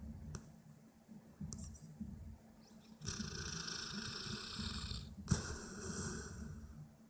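Dog snoring in its sleep: a low, rapid rumbling snore, with a louder hissing breath through the nose from about three seconds in, broken by a short gap and a sharp click near the middle of it.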